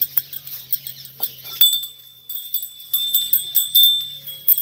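Small metal hand bell rung rapidly, as in worship before a shivling. Its ringing comes in about a second and a half in and holds on, with quick strikes of the clapper throughout.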